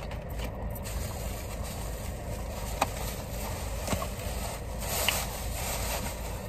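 Steady low rumble inside a car, with a couple of light clicks from handling a takeout container and a plastic bag rustling near the end.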